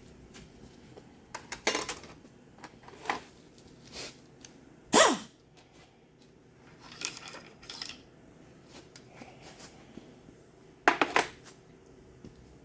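Hand tools and metal parts of a 4L60E transmission clinking and clanking as it is taken apart: a few separate knocks and short rattles, the loudest about five seconds in.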